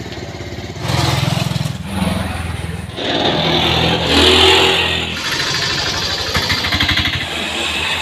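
Motor scooter engine passing close by. It comes in about a second in, swells to its loudest around the middle, then fades.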